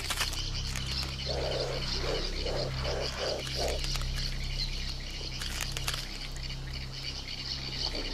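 A run of about six short, low animal calls starting about a second in and coming faster toward the end, over a steady high buzz and a low hum.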